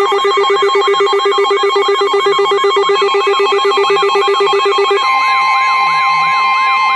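Several weather alert radios sounding their alarms at once: a rapidly pulsing low beep under a warbling, siren-like tone. About five seconds in, the pulsing beep stops and a steady high tone takes over, the NOAA Weather Radio warning alert tone that comes before a warning broadcast.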